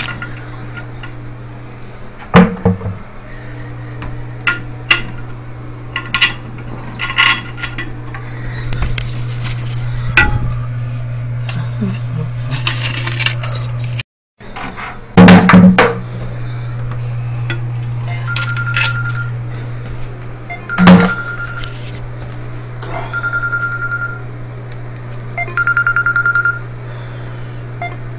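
Knocks and clinks of toilet tank parts being handled against the porcelain tank, over a steady low hum. Several short high beeps sound in the second half.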